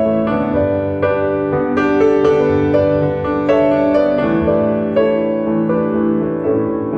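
Background piano music: single notes struck in a steady flow over held chords.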